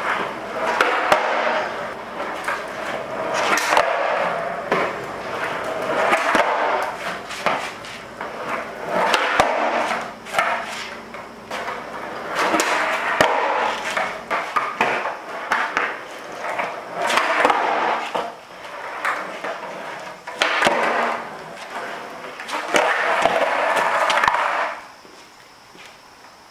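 Skateboard wheels rolling over rough concrete in a series of short runs, with sharp clacks as the board's tail and deck hit the ground. The rolling stops about two seconds before the end, leaving faint insect chirping.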